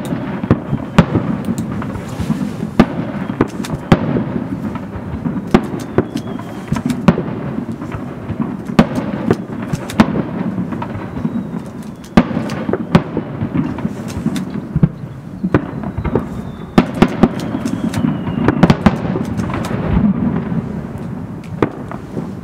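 Fireworks display: aerial shells launching and bursting in quick succession. Many sharp bangs sound over a continuous rumble of overlapping reports and their echoes, with a faint falling whistle now and then.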